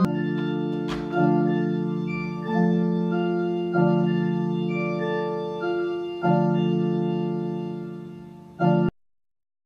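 Two-manual electronic home organ playing slow, sustained chords that change every second or two, with a click about a second in. The chords fade towards the end, then one last short chord cuts off abruptly.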